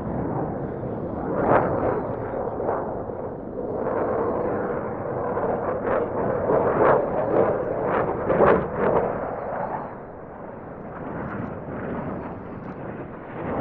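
Jet noise from a Dassault Rafale C's two Snecma M88 turbofans as the fighter passes low and pulls up. The noise rises and falls, with a rough crackle that is loudest about six to nine seconds in.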